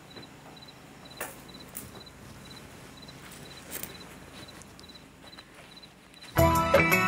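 Crickets chirping softly at an even pace, a little over two chirps a second, with a few faint clicks and rustles. Loud music starts about six seconds in.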